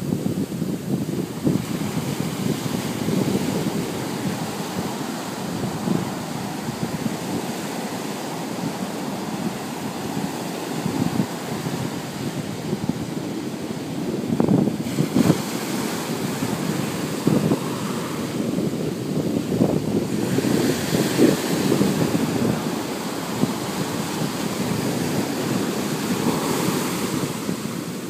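Ocean surf washing and breaking on a beach, swelling louder several times, with wind buffeting the microphone.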